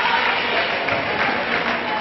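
Basketball game crowd in a gym applauding and chattering: a steady, dense wash of noise.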